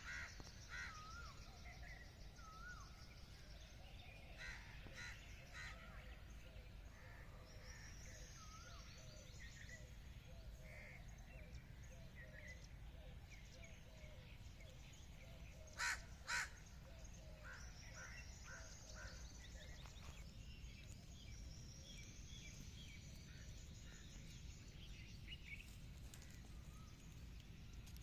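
Faint background birds chirping and calling in short scattered notes, with two brief sharp sounds close together a little past halfway.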